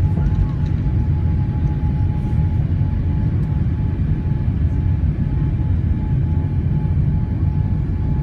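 Boeing 787-9 cabin noise during the climb after takeoff: a steady low rumble of jet engines and airflow heard from a window seat, with a faint steady whine above it.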